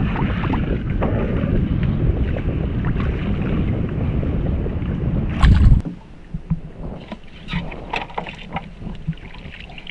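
Steady rushing noise of wind buffeting the microphone aboard a small boat, cutting off abruptly about six seconds in. After that it is much quieter, with scattered light knocks.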